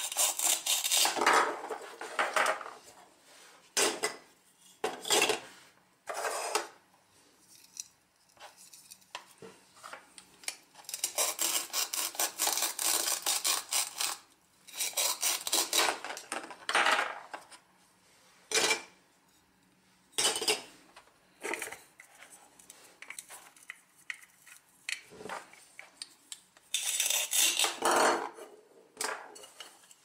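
Plastic toy knife cutting velcro-joined plastic toy fruit apart: several rasping rips of hook-and-loop fastener tearing, the longest lasting about three seconds, between sharp clicks and clatters of the plastic pieces on a plastic cutting board.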